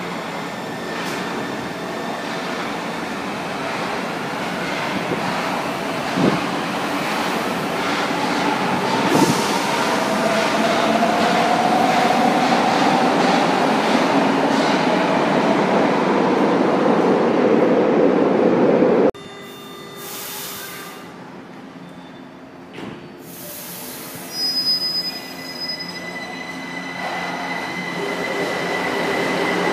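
São Paulo Metro Line 1 subway trains in an underground station. A train pulls out with a rumble that grows louder and a motor whine that rises in pitch, until a sudden cut about two-thirds in. After the cut come quieter station noise and a few short hisses, then another train coming in, growing louder with a steady high squeal.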